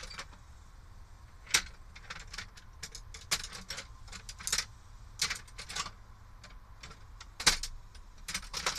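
Metal sockets and tools clinking and clattering in an irregular run of sharp clicks as someone rummages for a socket adapter. The loudest clink comes about three quarters of the way through.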